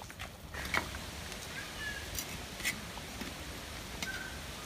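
Sparse faint clicks and light scraping of a metal ladle stirring fish curry in a clay pot.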